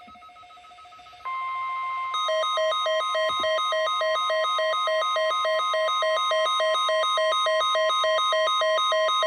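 NOAA Weather Radio warning alarm tone, a single steady electronic tone that begins about a second in. From about two seconds in, a pulsing electronic beep of about three beeps a second sounds on top of it, announcing a child abduction emergency (AMBER Alert).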